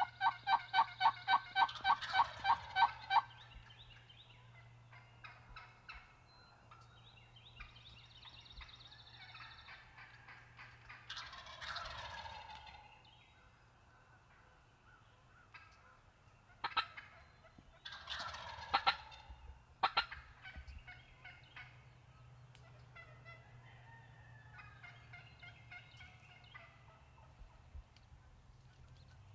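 Wild turkey gobblers calling at close range. A fast run of loud, evenly spaced calls, about seven a second, fills the first three seconds. Two rolling gobbles follow, near the middle and again about two-thirds of the way through, with a few short sharp calls between and softer calling after.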